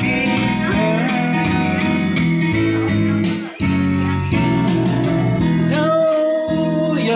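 Karaoke backing track with guitar and a steady beat, played loud through a speaker, with a voice singing over it through the microphone. The music drops out briefly about halfway through.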